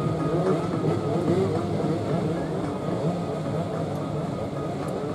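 A grid of two-stroke 125 cc underbone racing motorcycles idling and blipping their throttles together, many engine notes overlapping and wavering up and down.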